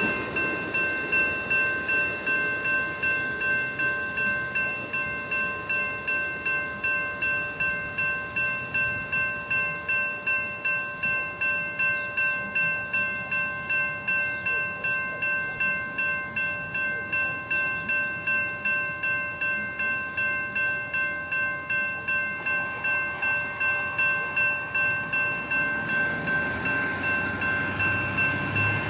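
Railroad crossing warning bell ringing steadily, about two strokes a second, while the crossing lights flash and the gates are down after a train has passed.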